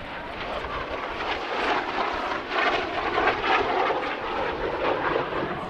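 Aermacchi MB-339 jet trainers flying past, their Rolls-Royce Viper turbojets making a jet roar that builds to a peak about halfway through and then fades.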